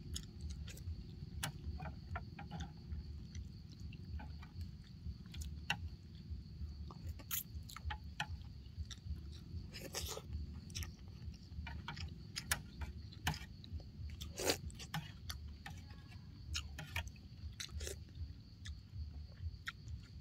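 A person eating noodle soup: chewing and slurping noodles, with a few longer slurps near the middle and many small clicks from mouth and utensils.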